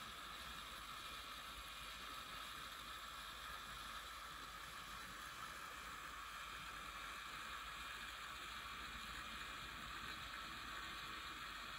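Small electric motors spinning the four propellers of a scale model B-17F, a steady whirr that neither rises nor falls.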